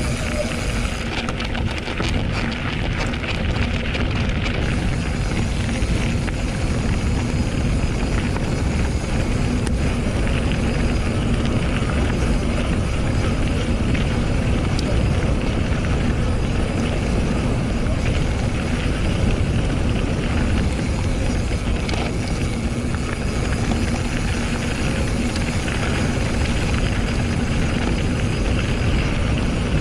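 Steady wind rush over a GoPro Hero 7 Black's microphone, with the rumble of a Scott Scale RC mountain bike rolling over the trail.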